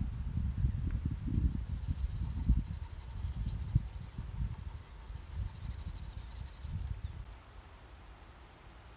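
An insect trilling in a high, rapidly pulsing buzz, starting about a second in and stopping near the end, over irregular low rumbling that fades out.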